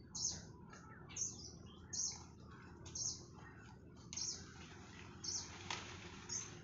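Leaves and twigs of an overhead branch rustling in short bursts about once a second as a nilgai pulls and strips them with its mouth, with one sharper snap about a second before the end.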